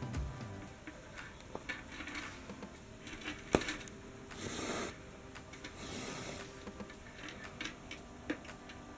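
Handling noise from working yarn through a crocheted piece: scattered light clicks and ticks, one sharper click about three and a half seconds in, and two brief rustles a little later.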